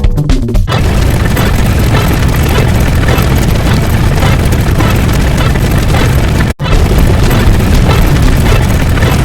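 Loud, continuous booming noise with heavy bass, cutting out for an instant about six and a half seconds in.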